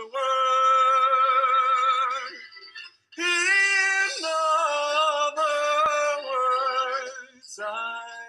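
A man singing solo with no accompaniment heard. He holds a long note with a wide vibrato for about two seconds, breaks off briefly, then sings a phrase of held and gliding notes, and comes in again near the end.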